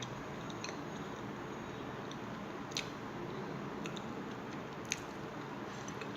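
Close-miked chewing, soft mouth sounds with a few sharp wet clicks, the loudest about five seconds in, over a steady hiss.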